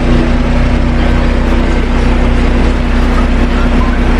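Electric hair clippers buzzing steadily, held close while trimming around the ear.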